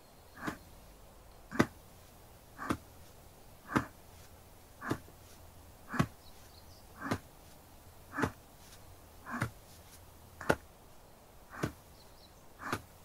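ASMR shoulder-tapping massage on the left shoulder: evenly spaced taps, about one a second, twelve in all.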